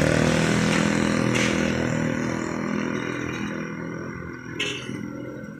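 A motorcycle engine running close by, then fading away as it moves off. A short sharp clack about four and a half seconds in.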